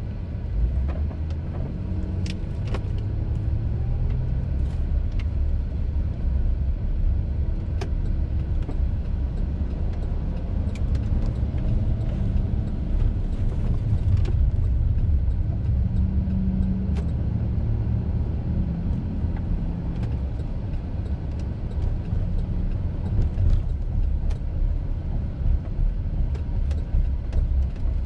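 Car driving: a steady low engine and road rumble, with a few light clicks here and there.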